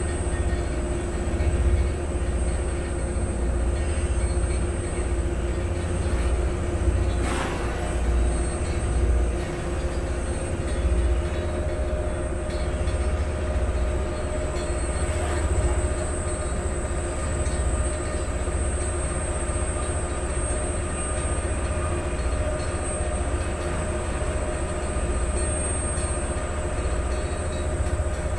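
Vaporetto water bus's diesel engine running steadily under way, a constant low drone with a few steady tones over it, and water rushing along the hull.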